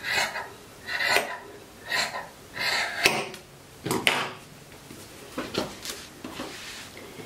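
Scissors snipping through velour fabric, about one cut a second for the first four seconds, then softer rustling and a couple of light clicks as the cloth is handled.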